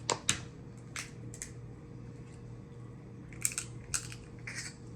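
Eating sounds from a snow crab and shrimp seafood boil: a scatter of short, sharp cracks and clicks of shell being broken and food being bitten, with several close together about three and a half seconds in.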